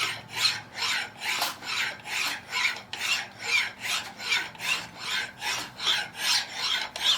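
Hand file rasping across a workpiece held in a vise, in even, repeated rocking strokes about two and a half a second, filing a radius onto the edge.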